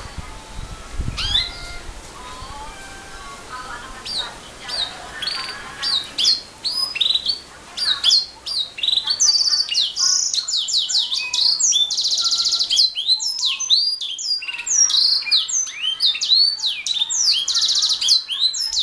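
Canary singing a long, fast song of rapid trills, rising whistled notes and buzzy rolls, becoming louder and fuller about six seconds in.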